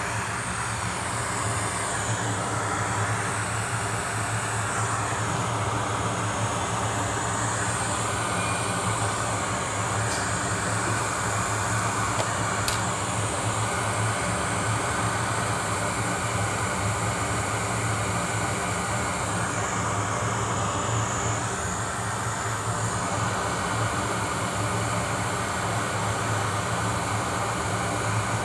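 Microsoldering bench equipment running steadily, most likely a hot air rework station blowing: an even rush of air over a constant low fan hum.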